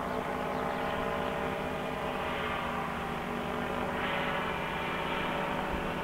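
Background music of sustained, drone-like chords, with a change in the chord about four seconds in.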